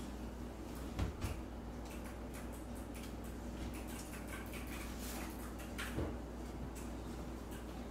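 Steady low room hum with a few faint knocks, about a second in and again near six seconds.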